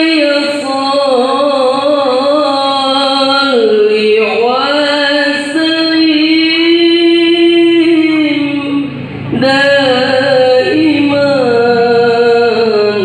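A man singing solo, unaccompanied, into a microphone through a PA, in a high register. He holds long ornamented phrases, with a short breath just before 9 seconds in.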